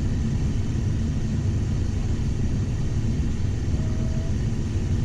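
Cockpit noise of a Cessna Citation XL business jet on final approach: a steady rumble of engines and airflow with a hiss above it. A faint short tone sounds about four seconds in.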